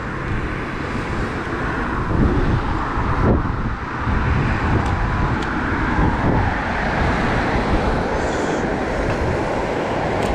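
Steady rushing outdoor noise of a rain-wet city street, like distant traffic, with a couple of faint clicks about five seconds in.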